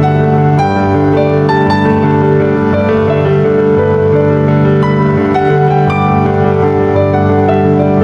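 Instrumental background music led by piano, single notes struck over held chords at an even, unhurried pace.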